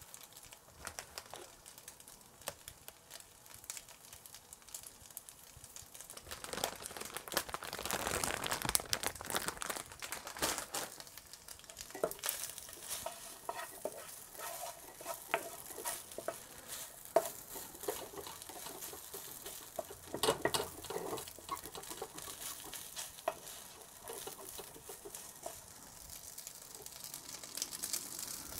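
Food frying in a non-stick pan, with a wooden spatula stirring and scraping against the pan. The sizzle grows louder about six seconds in, with scattered light clicks from the spatula throughout.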